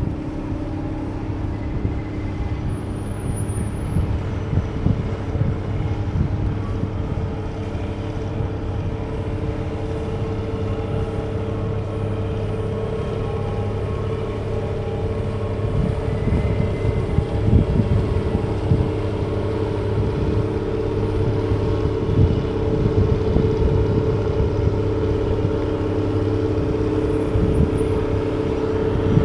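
Steady drone of a boat's diesel engine, a constant hum with overtones, with wind gusting on the microphone.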